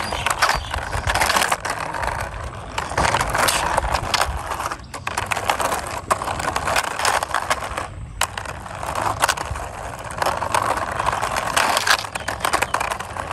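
Plastic wheels of a hand-pushed toy police car rolling and scraping along a wall: a continuous gritty rolling noise full of small clicks, with two brief pauses about five and eight seconds in.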